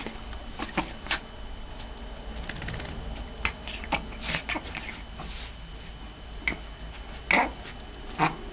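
A pet reverse sneezing: a series of short, sharp, noisy snorting breaths at irregular intervals, the loudest about seven seconds in and near the end. This is the pharyngeal gag reflex, a spasm of the soft palate and throat that pulls air in hard through the nose.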